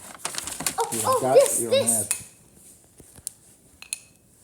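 Clattering and clicking of hard plastic toy pieces being rummaged through and knocked together, with a few separate ringing clinks near the end.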